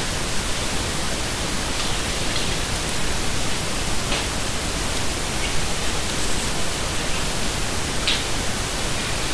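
Steady hiss of the recording's background noise, with a few faint clicks scattered through it.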